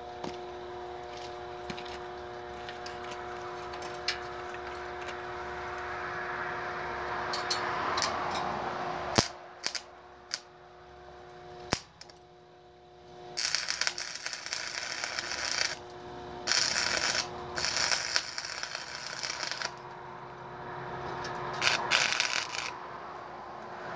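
Electric arc welding: several stretches of loud crackling hiss from the arc, each a second or two long, in the second half. A steady hum runs underneath, with a few sharp knocks before the welding starts.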